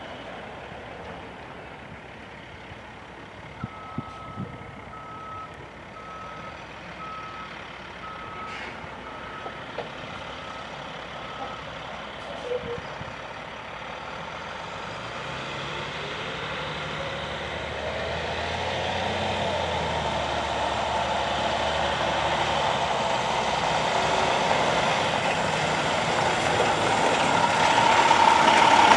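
International bucket truck's back-up alarm beeping about ten times, a little under a second apart, over the sound of its diesel engine. After the beeping stops, the engine's pitch rises as the truck accelerates, and it grows steadily louder as the truck comes close, loudest near the end.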